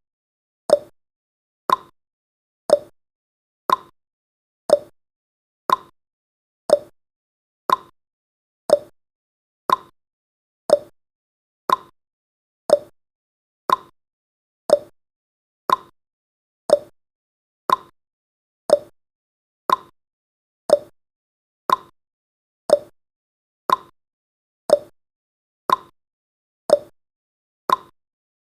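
Countdown timer's clock-tick sound effect: a short, sharp tick once every second, alternating higher and lower in pitch like a tick-tock.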